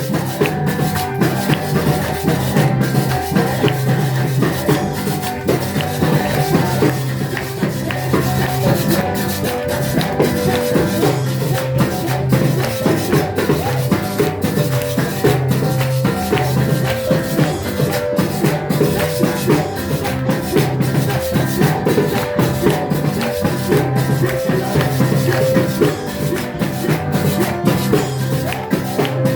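Music with drums and maracas shaking a steady beat under sustained instrumental tones.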